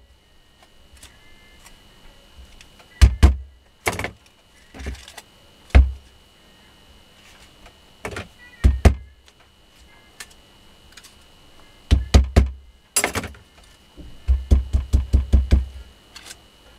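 Sharp knocks on a wooden stick held against a DC motor armature, pressing the newly wound copper wire down into the slots: scattered single and double taps, then a quick run of about six taps a second near the end.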